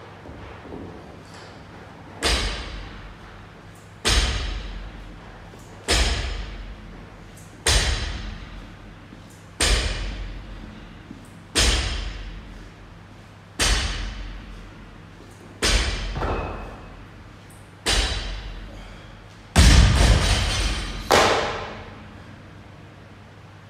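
Loaded barbell set down on the floor again and again during a set of deadlifts: a heavy thud with a short ring about every two seconds, eleven in all, the last two closer together and loudest, as if the bar is dropped and bounces at the end of the set.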